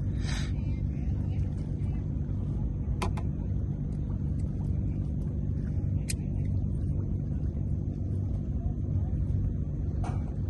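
A steady low rumble, with a few sharp clicks about three, six and ten seconds in.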